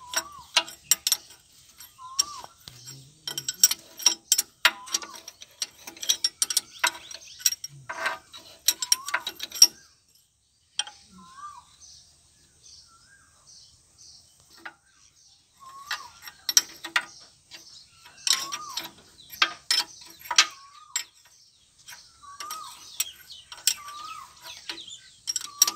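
Metal-on-metal clicking and rattling from the gears inside a Massey Ferguson 245 tractor's open transmission housing, as a thin steel rod is worked against the gear teeth and the gears are turned by hand. The clicks come in irregular runs and ease off for a few seconds in the middle.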